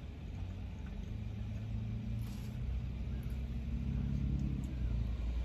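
Low vehicle engine rumble with a pitched hum that swells from about a second in and eases off near the end.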